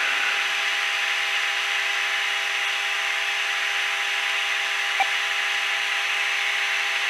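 Steady cockpit noise of a Cessna Citation Encore in flight: an even rush of airflow with the constant whine of its twin turbofan engines, holding a few fixed tones. A small click about five seconds in.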